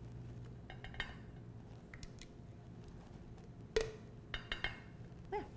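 A few light taps and knocks as a utensil scrapes thick avocado dip out of a blender jar into a glass bowl, the loudest tap nearly four seconds in.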